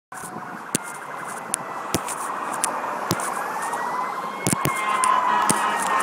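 Whelen electronic siren of an ambulance on an emergency call, drawing closer and growing steadily louder. It runs a fast warbling yelp, then about halfway through switches to a slow wail that rises and starts to fall. A few sharp clicks are heard over it.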